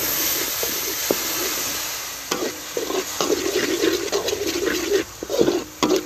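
A hot wok sizzling loudly with a sauce just poured in, a steady hiss that fades over the first two seconds or so. After that a metal spatula scrapes and knocks against the wok as the mixture is stirred.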